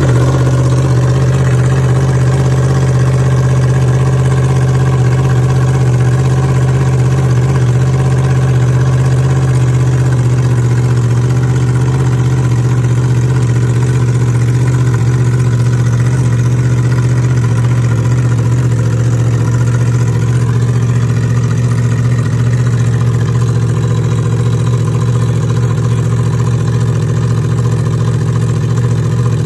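Yamaha R1's crossplane inline-four engine idling steadily with no exhaust fitted, so it runs bloody loud through the open headers.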